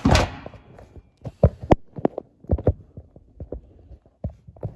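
Handling noise: a brief rustle, then a run of irregular light knocks and clicks, about two or three a second.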